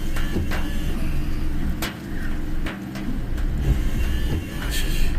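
Inside a moving car: a steady low rumble of engine and road noise, with a few scattered sharp clicks and knocks at irregular moments.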